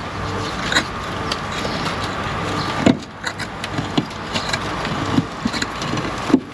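Scattered knocks and taps of a steel cold chisel and club hammer working at brickwork and mortar, with two heavier thuds about three seconds in and near the end, over a steady mechanical hum.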